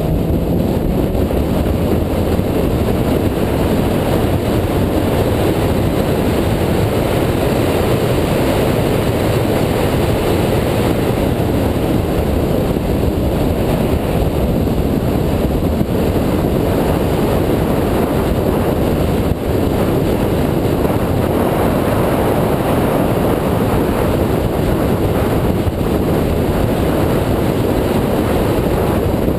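2004 Mini Cooper S's supercharged four-cylinder engine running at track speed under load, mixed with a steady rush of wind and road noise.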